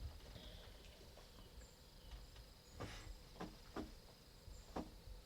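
Near silence with a faint steady high hum and a few soft clicks, about three seconds in and once more near the end.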